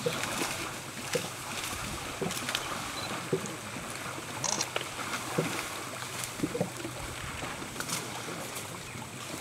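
Bornean pygmy elephants wallowing in a muddy river: water splashing and sloshing in small, irregular bursts over a steady background hiss.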